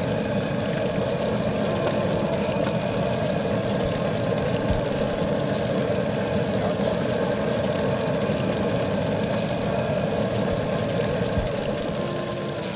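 Battered grass carp pieces deep-frying in a pot of hot oil: a steady, even sizzle that drops off a little near the end.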